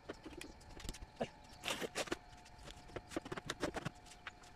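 Hollow, irregular clacks and knocks of PVC pipes and fittings being handled and pushed together on a tile floor, with a faint steady hum underneath.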